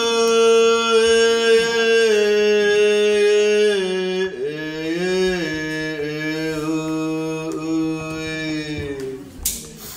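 A single voice singing in long held notes: one steady note for about four seconds, then lower notes with slides between them. A short hiss near the end before the singing resumes.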